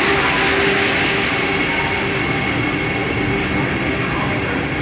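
Vande Bharat electric train running along the platform as it arrives: a steady, loud rumble of wheels on rail with a faint steady whine over it.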